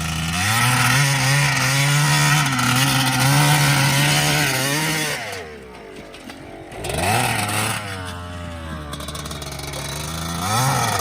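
Small single-cylinder off-road engine revving hard and held at high revs, then backing off about five seconds in. It revs up again about seven seconds in and climbs once more near the end.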